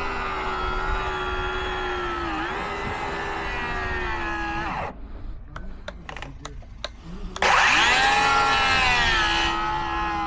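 Power saw ripping a timber board lengthways, its motor whining steadily with a brief dip as the blade bites. It stops about halfway through, a few light clicks follow, then it spins up again near the end for a second stretch of cut.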